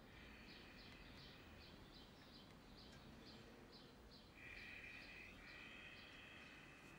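Faint ambience of short high chirps repeating evenly about three times a second, over a steady high buzz that grows louder about four seconds in.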